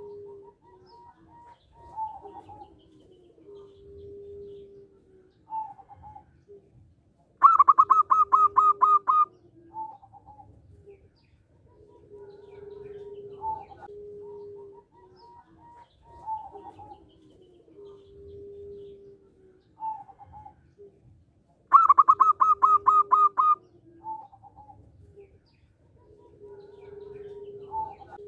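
Zebra dove (local perkutut) singing. Twice it gives its loud, rhythmic song, a fast run of about ten clear staccato coos lasting about two seconds, and softer low coos and short single notes fill the gaps between.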